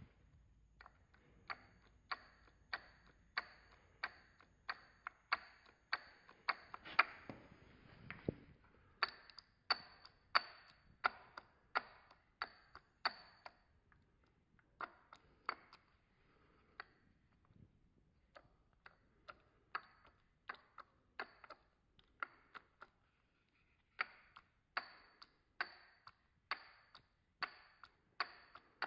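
The loose intermediate gear of a VW 5.0 TDI V10 timing gear cassette is rocked back and forth by hand, clacking metal on metal about twice a second, with a short ring after each click. The clatter is the play of the gear on its destroyed bearing.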